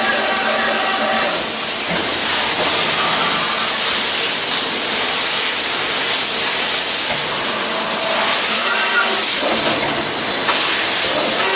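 Loud steady hiss, with music faintly under it at the start and again near the end.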